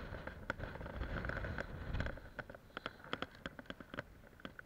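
Wind rumbling on the microphone, easing after about two seconds, followed by a run of irregular light clicks and taps, several a second.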